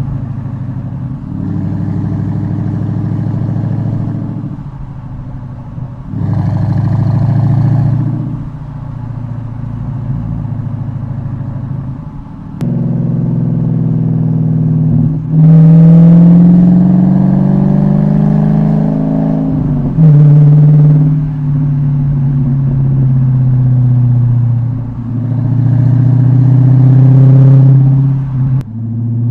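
Dodge Challenger R/T's Hemi V8 through an H-pipe and Dynomax Race Bullet rear mufflers with the active valves deleted, running hard and letting off in turns. The exhaust note climbs in pitch a little after halfway, then falls away slowly as the car decelerates, with several sudden surges and drops in loudness.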